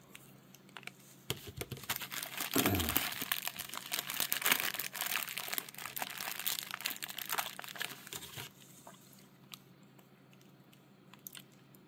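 A small clear plastic accessory bag crinkling as hands work in it for several seconds, then stopping, leaving a few faint clicks of small plastic parts.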